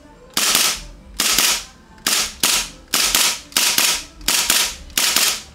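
KJ Works KP-19 gas blowback airsoft pistol firing about a dozen sharp shots, mostly as quick double taps, each pop with a short hiss as it fades. Shot velocity falls off toward the end of the magazine as the gas cools.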